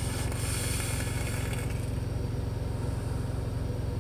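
Semi-truck's diesel engine idling, a steady low rumble with a fast even pulse heard inside the cab. A breathy hiss of a large vapor exhale fades out over the first second and a half.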